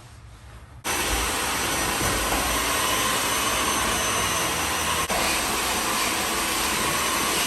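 A loud, steady rushing noise from a running machine, like a vacuum or blower, starting suddenly about a second in and holding even, with a brief click near five seconds.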